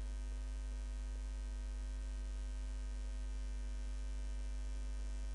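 Steady electrical mains hum: a low drone with a fainter buzz of higher tones above it.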